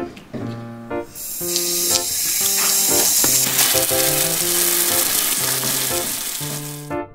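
Garden hose spray nozzle spraying water onto tiles, a loud steady hiss that starts about a second in and cuts off suddenly near the end. Background piano music plays throughout.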